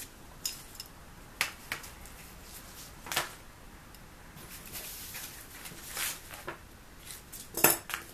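Scattered light clicks, knocks and rustles from cardboard, scissors and a tape measure being picked up and set down on a cloth-covered table, with a sharper cluster of clicks near the end.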